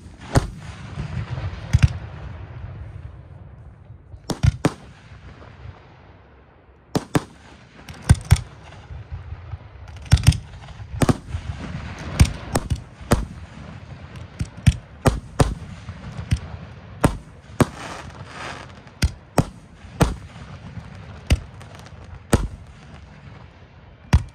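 Aerial firework shells bursting in irregular succession, with dozens of sharp booms and cracks and a low rumble of echo between them. The reports come thicker and faster from about ten seconds in.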